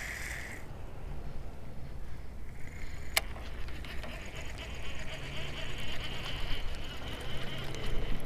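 Baitcasting fishing reel being worked. The spinning spool's whir stops about half a second in and there is one sharp click about three seconds in. A steady faint whir follows as the reel is cranked, with small clicks near the end, over a low wind rumble.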